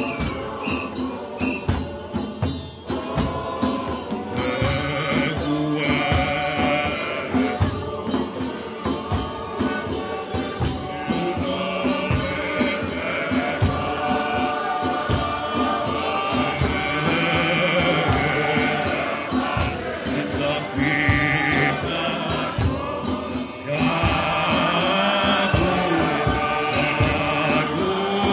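A large church choir and congregation singing a hymn together, with a hand drum beating a steady rhythm underneath.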